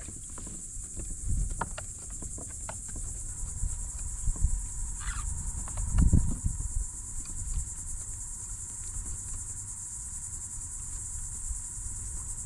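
Steady high-pitched insect buzz, with scattered low thumps and knocks, the loudest about six seconds in.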